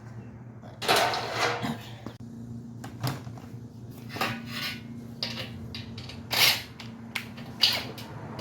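Sheet-metal gas grill panels and parts being handled, clanking and rattling in irregular knocks, loudest about a second in and twice near the end, over a faint steady low hum.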